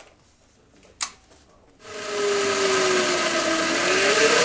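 A single sharp click about a second in, then the twin Agni electric motors on the swingarm spin up and run, driving the rear wheel unloaded off the ground: a loud, steady electric whine over a whirring rush, its pitch dipping slightly and rising again near the end.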